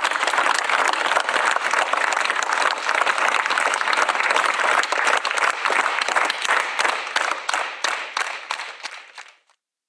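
Theatre audience applauding: dense, steady clapping that thins out and fades away near the end.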